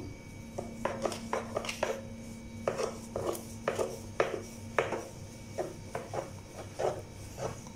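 Wooden rolling pin rolling out chapati dough on a plastic cutting board, giving short knocks and rubs about twice a second as it is pushed back and forth.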